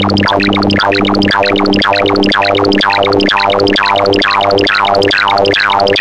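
Bubble sort algorithm sonified as rapid synthesized beeps. They sweep downward in pitch about twice a second, over a steady low tone.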